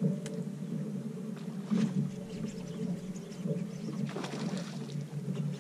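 Steady low motor hum, with a few faint clicks.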